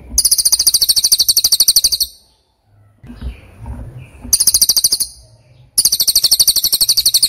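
A bird singing a rapid, high-pitched trill in three bursts, about twenty notes a second. The first burst lasts about two seconds and the second is brief.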